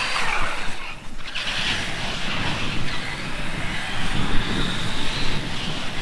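Radio-controlled car's electric motor whining as the car drives, over a low steady rumble; the sound drops briefly about a second in.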